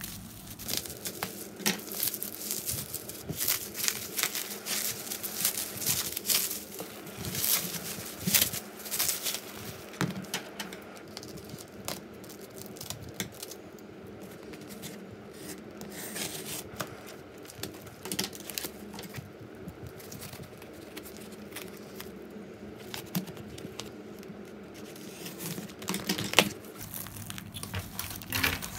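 Bubble wrap crinkling and tearing as it is cut with scissors and pulled off a cardboard parcel, then the taped cardboard box being handled and opened. The crackling is densest in the first half, quieter in the middle, with a sharp loud crack near the end.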